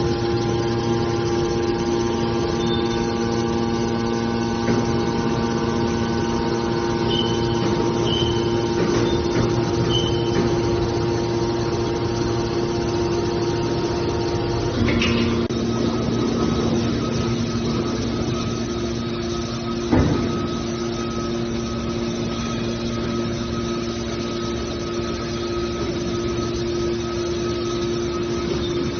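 Scrap metal baler's machinery running with a steady hum, its tone shifting about halfway through, with a single sharp knock about twenty seconds in.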